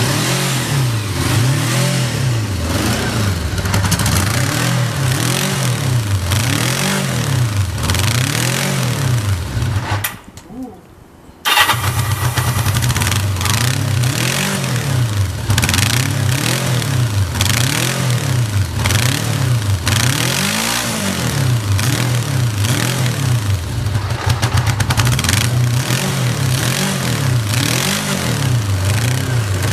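Carbureted motorcycle engine running with its revs rising and falling over and over. About ten seconds in it dies, and a second and a half later it is electric-started again and runs on unevenly. The unstable idle is put down to a carburettor that has only had a simple overhaul.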